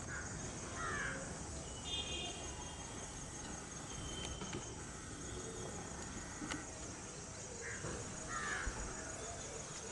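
Birds calling: short harsh calls in pairs near the start and again near the end, with a few higher chirps between.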